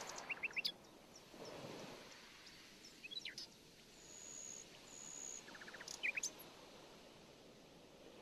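Small birds chirping faintly: a few groups of short, quick chirps and two thin high whistles, over a steady background hiss.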